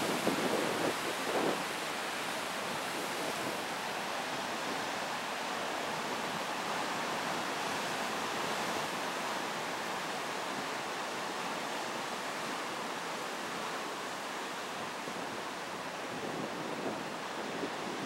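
Rough sea breaking over a rocky shore: a steady rush of churning surf and whitewater. Brief gusts of wind buffet the microphone in the first second or two and again near the end.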